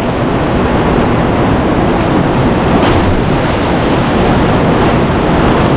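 Steady, loud rush of a waterfall and creek running high after rain.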